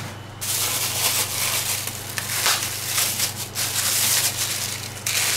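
Plastic wrapping crinkling and rustling as hands handle and open a wrapped package of meat, in irregular crackly bursts.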